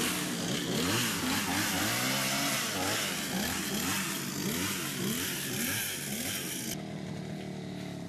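Small petrol engine of a handheld cutting tool, such as a brush cutter or chainsaw, revving up and down over and over as it cuts vegetation. Near the end it drops to a quieter, steadier run.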